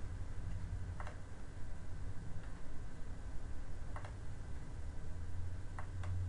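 A few faint computer mouse clicks over a low steady hum: one about a second in, one around four seconds in, and two close together near the end.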